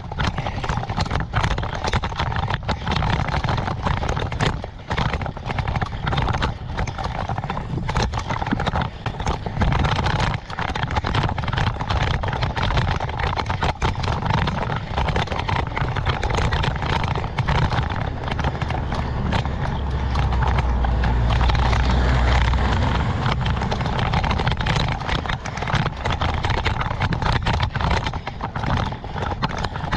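Rattling and knocking from a bicycle-mounted action camera on a road climb, with wind rumbling on the microphone. The rumble grows louder and deeper for a few seconds past the middle.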